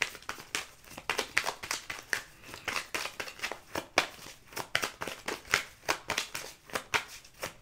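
A tarot deck being shuffled by hand: a quick, irregular run of card clicks and flicks, several a second, as a clarifier card is drawn.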